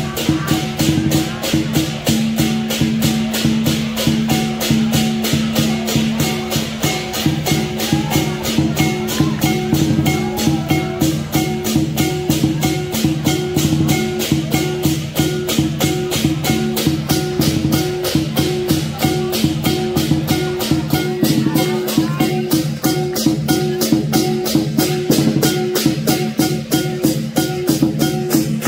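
Lion dance percussion ensemble of drum, cymbals and gong playing a steady, driving beat of about four hits a second, with the metal ringing on between strokes.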